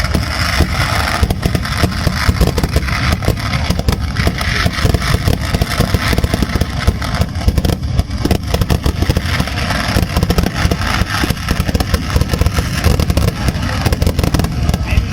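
Fireworks crackling: a dense, continuous run of rapid pops.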